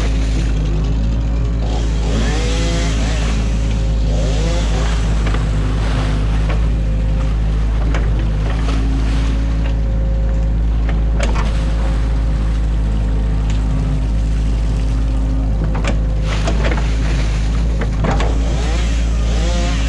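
Excavator's diesel engine running steadily, with whines that rise and fall over it and a few sharp knocks.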